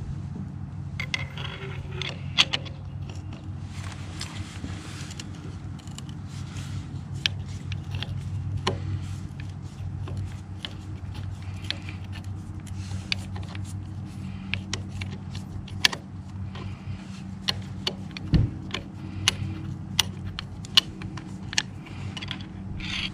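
Phillips screwdriver turning in the anodized metal gear shift extender tube on a Can-Am Ryker shifter, backing out the stainless steel screw: many scattered sharp metallic clicks and scrapes over a steady low hum.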